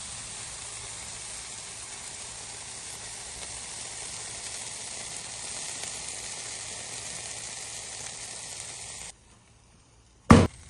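Shrimp sizzling steadily as they cook, then cutting off abruptly about nine seconds in. A single sharp knock comes near the end.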